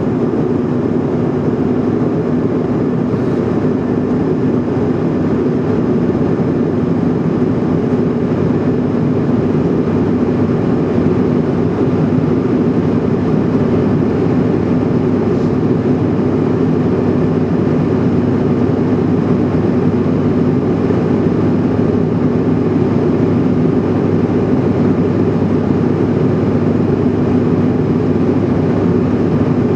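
Steady in-flight cabin noise of a Bombardier CRJ700NG airliner: a constant low drone from its rear-mounted General Electric CF34 turbofans and the airflow over the fuselage, with a steady hum in it.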